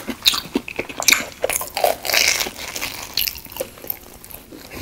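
Close-miked biting and chewing of deep-fried Korean hot dogs, the batter crust crunching in irregular bursts, loudest about two seconds in.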